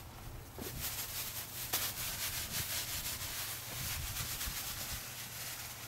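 A crumpled plastic bag rubbed over a horse's neck and mane, a continuous crinkling rustle flecked with brief crackles.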